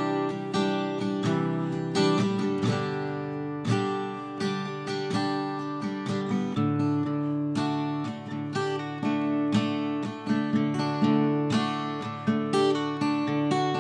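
Instrumental music: acoustic guitar, strummed and plucked, with no singing.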